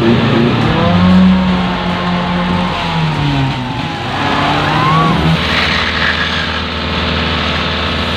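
An off-road 4x4's engine revving hard in deep mud, its pitch rising and falling for about five seconds, then dropping to a steady lower run.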